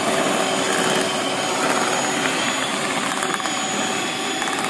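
Electric hand mixer running steadily, its beaters whipping butter, sugar and egg batter in a stainless steel bowl, beaten on until the sugar dissolves.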